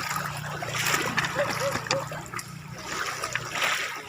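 Seawater splashing and washing in the shallows, swelling in several surges, with faint distant voices.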